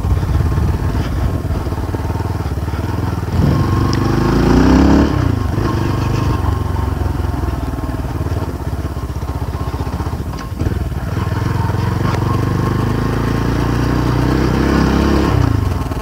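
Motorcycle engine running under load on a rough dirt track; its pitch rises and falls with the throttle about four seconds in and again near the end.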